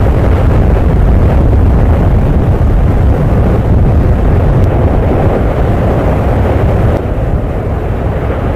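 Volcanic eruption: a loud, steady, deep rumble, easing slightly about seven seconds in.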